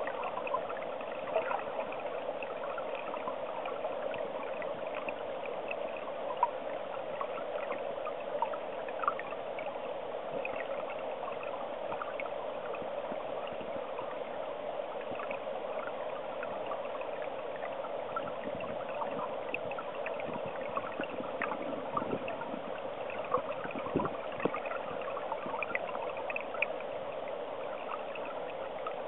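Stream water flowing, heard with the camera underwater: a steady rushing with many small scattered clicks and ticks.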